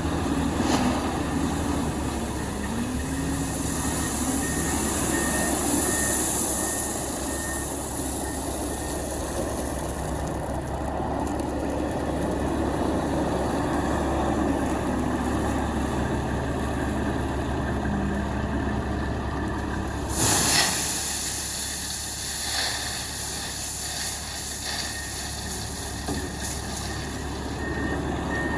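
Heavy diesel truck engine running, its pitch shifting now and then, with one short, sharp burst of noise about two-thirds of the way through.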